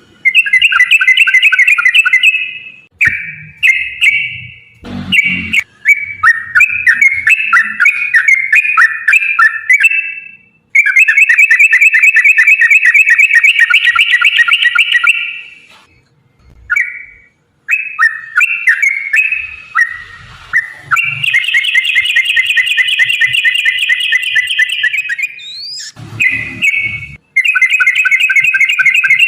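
Yellow-vented bulbul (trucukan) singing long, rapid chattering trills in phrases of a few seconds each, with short breaks between them. A few brief low thumps fall in among the phrases.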